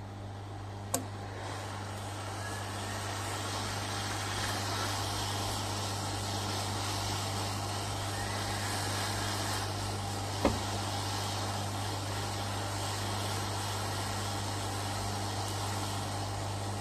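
Hot air rework gun blowing steadily, an even rushing hiss with a low mains hum under it, swelling a little over the first few seconds as it preheats the ESC circuit board. Two short clicks, about a second in and about ten seconds in.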